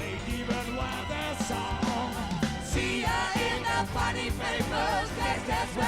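Live soul band playing, with voices singing over the full band.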